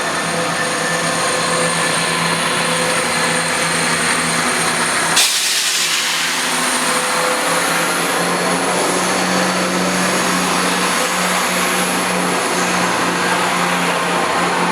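CrossCountry Class 170 Turbostar diesel multiple unit running at the platform with a steady engine hum. About five seconds in, a sudden loud hiss rises and fades over a second or so.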